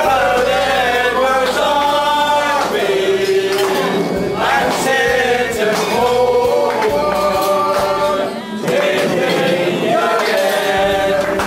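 A group of men singing a song together without words being spoken, several voices holding long notes and breaking between phrases.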